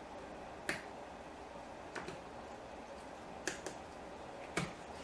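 Five sharp small clicks, two of them close together, as the iPhone 6S screen's flex-cable connectors are pressed back onto the logic board, over a steady low hiss.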